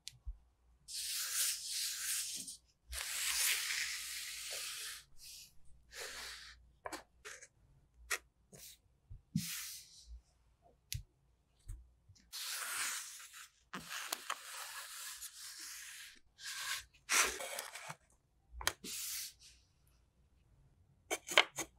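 Kinetic sand being pulled out of a plastic mould and crumbled by hand: several long stretches of rustling hiss, with sharp taps and clicks between them and two loud taps near the end.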